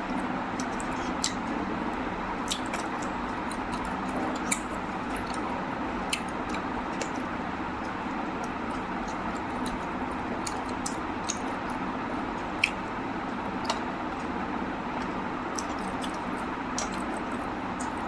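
Wet squishing and chewing of someone eating rice and mutton curry, with scattered short sharp clicks over a steady background hiss.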